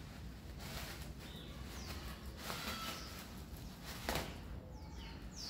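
Faint crinkling and rustling of a plastic-bag ball as a cat paws and bites at it on a tiled floor, with scattered light taps, a sharper one about four seconds in. A few faint, high, falling chirps sound in the background.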